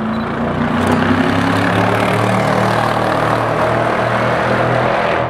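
Morgan Aero sports car's BMW V8 engine running hard as the car drives by. The note rises briefly, holds steady, then cuts off suddenly near the end.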